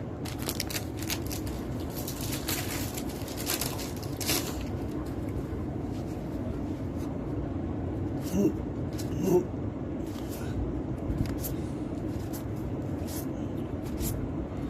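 Trading cards and their packaging being handled: a run of crinkling, rustling strokes for the first few seconds, then scattered softer ones, over a steady low hum.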